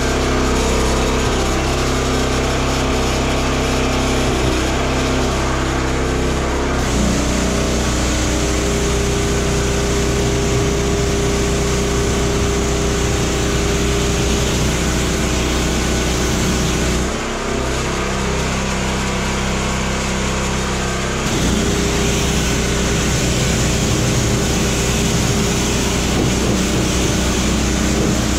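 Gas-engine pressure washer running steadily, with the hiss of its high-pressure wand spraying water onto the truck's cab and wheel. The spray starts several seconds in, stops for a few seconds past the middle, and then resumes.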